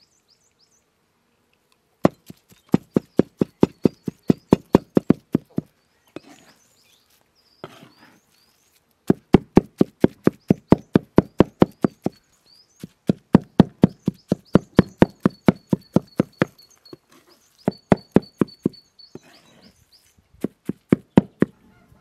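Steel meat cleaver chopping minced chicken on a wooden cutting board, working herbs and spices into the meat: rapid sharp knocks about four a second, in several runs with short pauses between. Birds chirp faintly in the background.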